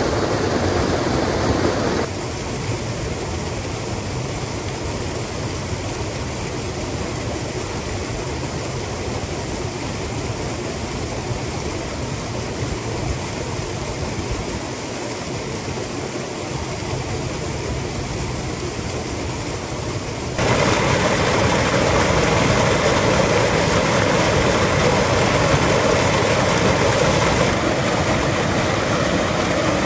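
Small waterfall pouring into a rock pool: a steady rush of falling and splashing water. It drops to a quieter level about two seconds in and comes back louder about twenty seconds in.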